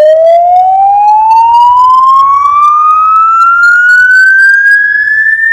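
A single long tone with overtones, gliding slowly and steadily upward in pitch from low to high.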